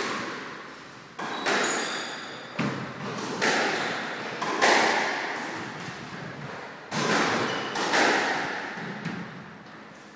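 Squash ball being hit by racquets and smacking off the court walls: about nine sharp hits, each ringing on in the court's echo, with a pause of about two seconds in the middle.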